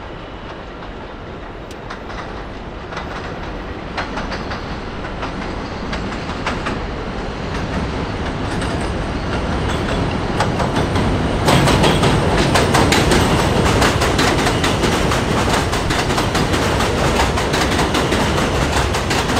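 A New York City Subway L train approaching on elevated track and running past at close range. Its wheels clatter over the rail joints in a clickety-clack that grows steadily louder, then turns into a loud, dense run of clicks about halfway through as the cars go by.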